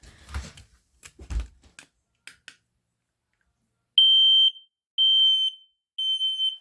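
Home smoke alarm being tested: three loud, high-pitched beeps about a second apart, each about half a second long, the three-beep pattern of a smoke alarm's alarm signal. Before them, a few knocks and clicks.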